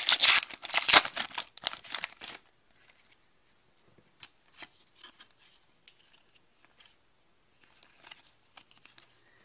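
Foil wrapper of a hockey card pack being torn open and crinkled loudly for the first two seconds or so. Then come faint, scattered soft clicks and rustles as the cards are slid through by hand.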